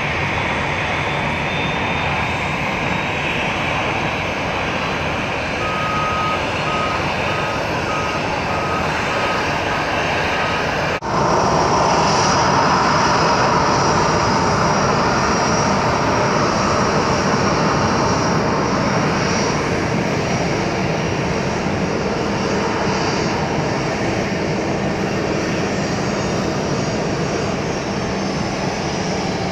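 Boeing 737-800's CFM56 turbofan engines running at low power as the jet rolls out and taxis: a steady jet rumble and hiss. The sound becomes louder after a cut about eleven seconds in, with a faint high engine whine on top.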